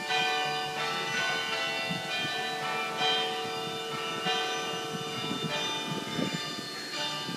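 Sather Tower's carillon playing a slow melody. Tuned bronze bells are struck one note after another, each note ringing on under the next.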